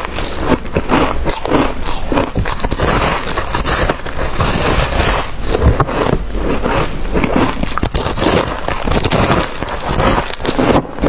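Freezer frost being bitten and chewed: a dense, unbroken run of crunching and crackling as the packed, snow-like ice is bitten off and crushed between the teeth.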